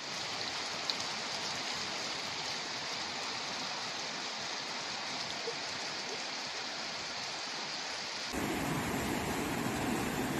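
Floodwater rushing in a steady torrent, with heavy rain. About eight seconds in, the sound changes abruptly to a louder, deeper rushing of muddy floodwater surging down a street.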